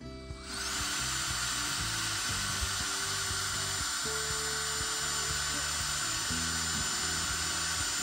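Power drill running steadily under load, with a high thin whine over its grinding, starting half a second in and stopping abruptly at the end: drilling into a steel shear bolt that has broken off flush in a combine.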